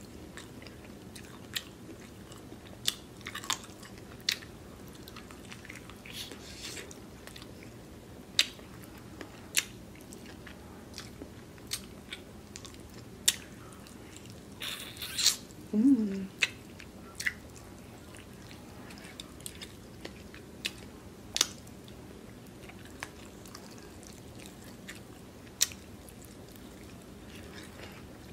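A person eating close to the microphone: scattered wet chewing smacks and mouth clicks, with a brief hummed "mm" about 16 seconds in.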